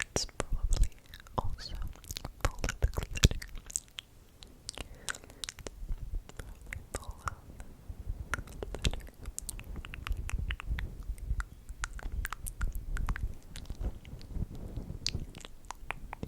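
Close-miked ASMR mouth sounds: a rapid, irregular run of wet clicks and smacks, busiest in the first few seconds.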